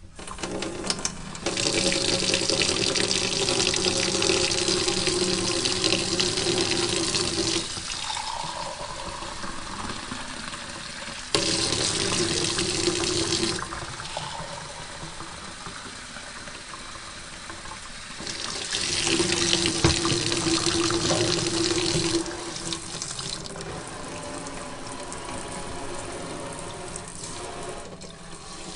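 Water running from a sink tap into the basin, the flow swelling louder and easing off several times: loudest at about 2 to 7 seconds, briefly around 12 seconds and again around 20 seconds.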